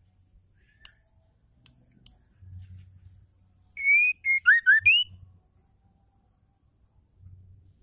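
White-rumped shama (murai batu) giving a short burst of clear whistled song, about six notes in just over a second: a rising whistle, quick short notes, two sharp falling notes and a final upward whistle. A few faint ticks come before it.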